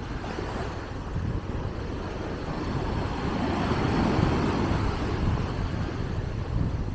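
Surf breaking and washing up the beach, swelling to a louder crash about four seconds in, with wind buffeting the microphone.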